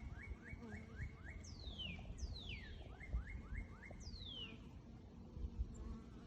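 A songbird singing two phrases. Each phrase opens with long whistles sliding down from high to lower pitch, then a quick run of four or five short downslurred notes. A low rumble and a faint steady hum sit underneath.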